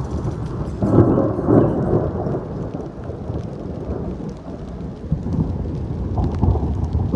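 Thunder rumbling with rain falling. A deep peal swells about a second in and fades over a few seconds, and another rumble builds near the end.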